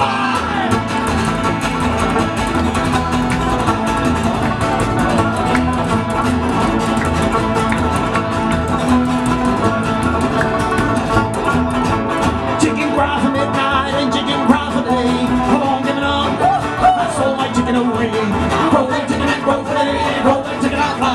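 Live bluegrass-style band playing, with acoustic guitar and upright double bass carrying a steady beat.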